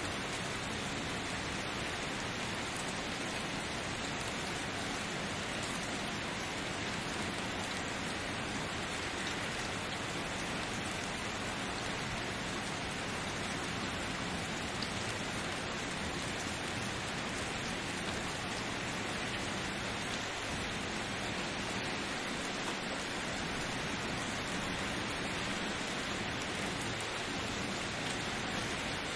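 Rain falling steadily, an even hiss that does not change.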